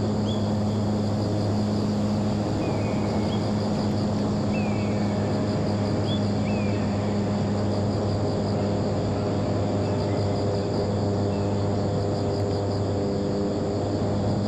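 Electric motor and propeller of a homemade RC airplane, an FT Simple Cub build, running steadily in flight with a constant droning hum.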